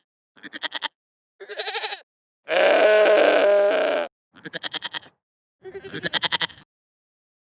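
A goat bleating five times, each call quavering; the third call, in the middle, is the longest and loudest, and the calls stop about a second before the end.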